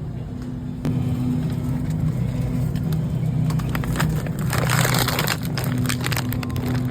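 A steady low machine hum, louder from about a second in. Over it come scattered clicks and a spell of crinkling and rustling around the middle.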